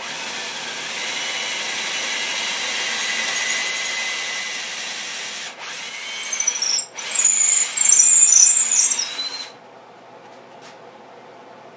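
Power drill boring pickup-wiring access holes through a solid wooden guitar body with a long bit, running steadily with its pitch slowly rising. A loud high-pitched squeal joins about three and a half seconds in, and the drilling stops about nine and a half seconds in.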